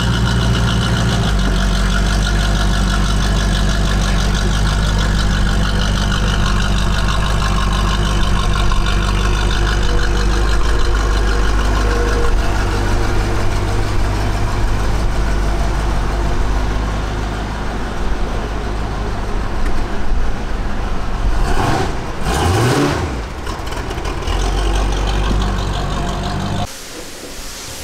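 Car engine running steadily at idle, with a brief rise and fall in pitch about 22 seconds in. The engine sound cuts off shortly before the end.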